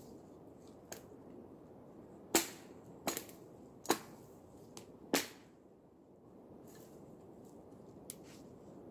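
Sharp cracks of dry dead branches and twigs snapping, about seven irregular snaps, the four loudest bunched between two and five seconds in.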